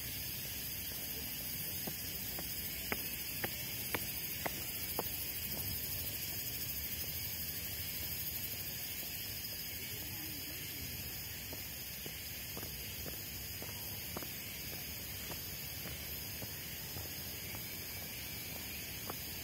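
Footsteps on stone steps and paving, about two a second, sharpest a few seconds in and fainter later, over a steady high background hiss.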